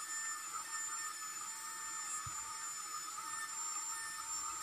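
Trim router running steadily with a faint high whine while routing the lock recess into the edge of a wooden flush door.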